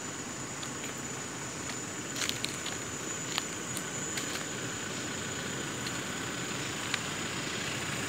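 Footsteps crunching through dry leaf litter and twigs: a cluster of crackles about two seconds in and a few single snaps later, over steady noise and a steady high-pitched tone.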